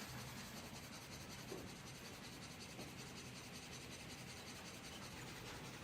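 Faint, steady rushing noise with no distinct events.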